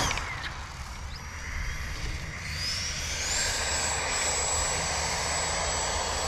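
Electric ducted fan of an RC jet dragster whining. Its pitch drops right at the start, then rises from about two and a half seconds in to a high, steady whine that holds until near the end, as the fan pulls the car, stuck at the edge of the grass, back out.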